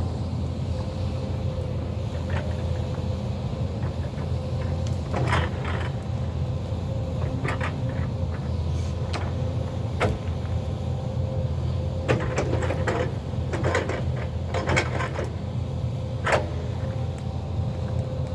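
Hyundai crawler excavator's diesel engine running steadily with a steady whine. Clusters of sharp cracks and knocks come several times over it, from the fork and grapple working through trees, stumps and brush.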